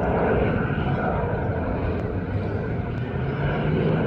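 Jet airliner engines running, a steady rumble with a low hum.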